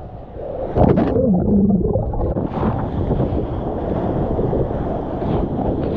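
Water rushing and splashing against a surfboard-mounted camera as the board rides through breaking whitewater, with wind buffeting the microphone. A loud splash and gurgle about a second in, then a steady rush.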